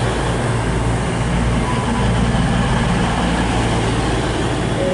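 CrossCountry Voyager diesel multiple unit moving past along the platform, its underfloor diesel engines running with a steady low drone.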